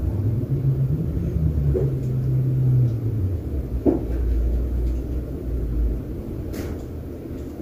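KDK 60-inch industrial ceiling fan running, a low hum and air rumble on the microphone; the hum drops lower after about three seconds and fades out near six seconds.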